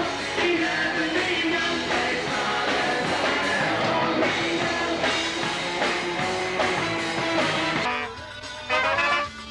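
Rock band playing with a singer and guitar. The full sound drops away about eight seconds in, with a short loud burst just before the end.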